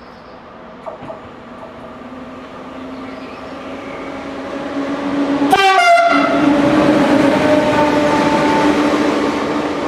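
SNCF electric locomotive approaching and passing at speed. It gives a short horn blast about five and a half seconds in, then the loud rush of the train with a steady electric whine, fading slightly near the end.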